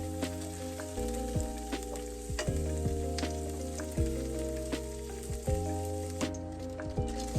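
Background music with slow chord changes, over a crackling sizzle of food frying in a pan, with scattered pops.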